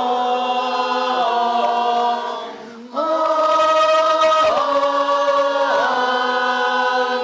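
An a cappella church choir sings a liturgical response in sustained chords. The first phrase ends about two seconds in, and after a short breath a second, louder phrase follows.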